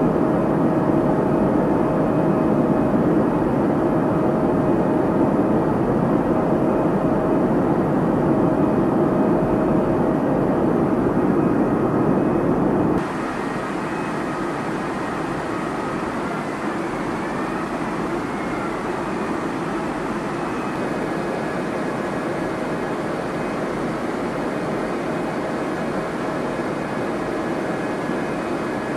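Aircraft engine noise: a steady drone with a thin, constant whine. About thirteen seconds in it cuts abruptly to a quieter, thinner engine sound with less low rumble and more hiss.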